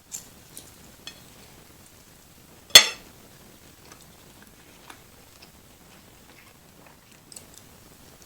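Cutlery clinking on a plate: one sharp, loud clink nearly three seconds in, with a few faint clicks and taps around it.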